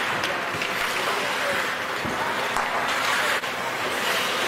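Ice hockey play in the rink: a steady hiss of skates on ice mixed with spectators' voices, broken by several sharp clacks of sticks and puck.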